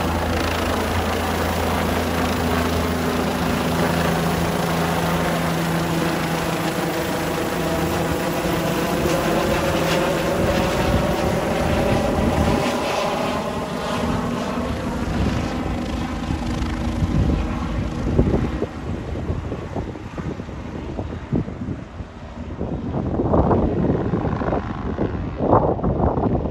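Bell 407 helicopter's four-blade rotor and turbine engine running as it climbs away overhead, the sound fading and losing its top end over the second half. Gusts of wind buffet the microphone near the end.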